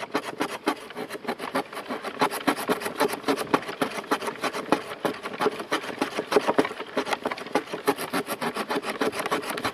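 Sawback spine of an Aitor Oso Blanco knife sawing through a firm branch: a steady run of quick, even back-and-forth strokes, the teeth rasping on the wood.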